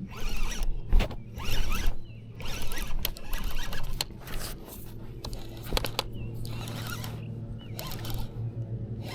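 Fishing reel being cranked in short, raspy spurts as a hooked fish is reeled in, the cranking easing off after about four seconds.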